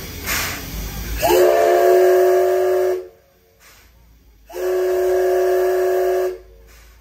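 Steam whistle of the C11 steam locomotive sounding two long blasts, each about two seconds, several notes at once. The first slides up briefly into its note. Before them come a couple of short hisses of steam.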